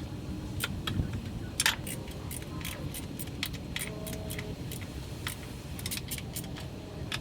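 Irregular light metallic clicks and clinks of hand tools and parts as the valve covers are refitted on a Chevy 305 small-block V8, over a low background rumble.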